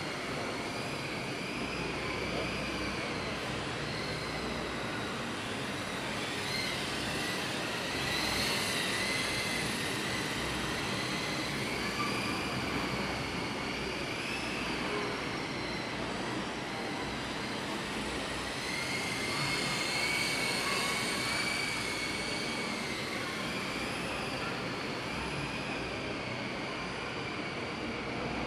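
Small electric motors and propellers of an ultra-light indoor RC model airliner whining, the pitch wavering up and down as the plane flies its circuits, over steady hall noise.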